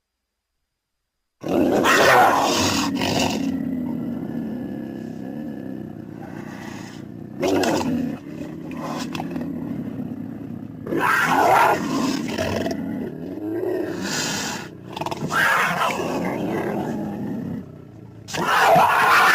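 Wild cat growls and snarls built from lynx, bobcat and cougar recordings as the voice of the Cactus Cat creature. After a second and a half of silence, a loud snarl opens into a long rumbling growl, broken by further loud snarling outbursts every few seconds.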